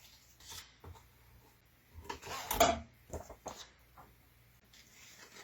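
Paper rustling and short handling noises as the printed contents of a comic's polybag set are sorted by hand, a cluster of them about two seconds in and a few smaller ones after.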